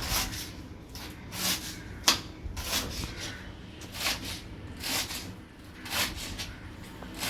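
Knife slicing through radish greens on a chopping board, a scratchy stroke about once a second, with one sharp knock of the blade on the board about two seconds in.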